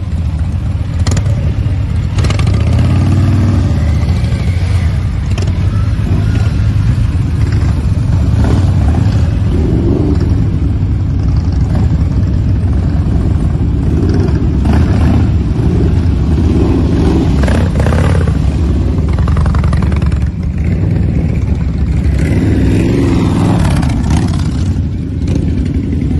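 A line of cruiser and touring motorcycles riding slowly past one after another, their engines running loud and revving, the pitch rising and falling over and over.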